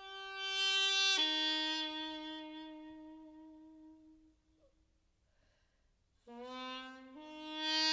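Solo piri, the Korean double-reed pipe, playing a slow, quiet opening melody. A held note falls to a lower one about a second in and fades away. After a pause of about two seconds, a new phrase climbs in steps and swells near the end.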